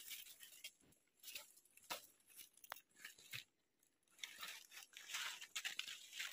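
Footsteps crunching through dry leaf litter and undergrowth, with leaves rustling and small twigs snapping in faint, irregular bursts, and a brief lull a little before four seconds in.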